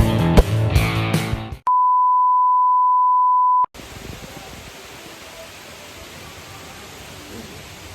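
Background music cuts off, followed by a single steady high beep lasting about two seconds. The beep stops abruptly and gives way to a steady rushing hiss.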